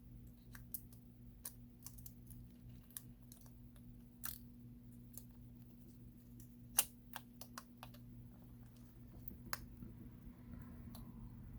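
Light, irregular clicks and taps of a smartphone's motherboard and small parts being handled and set into the phone's metal frame, the sharpest click about seven seconds in. A faint steady hum runs underneath.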